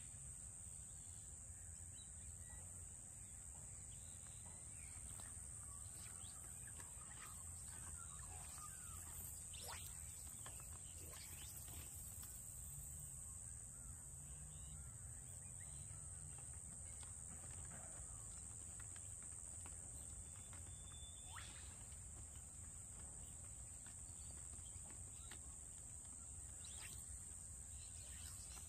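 Quiet outdoor ambience: a steady high-pitched insect drone over a low rumble, with a few faint short calls scattered through.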